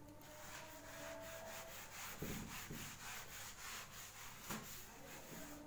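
Handheld eraser scrubbing writing off a whiteboard: a run of faint back-and-forth rubbing strokes, with a couple of soft knocks a little past two seconds in.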